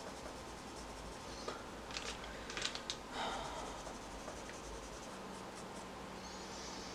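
Graphite pencil scratching on drawing paper in short shading strokes, clustered about two to three seconds in, with a short soft hiss near the end.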